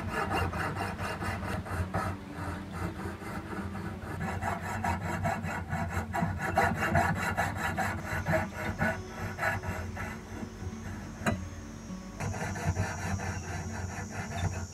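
Fine-toothed fret saw blade cutting a slot into the tip of a steel screwdriver blank, in rapid back-and-forth strokes, with a short break about eleven seconds in.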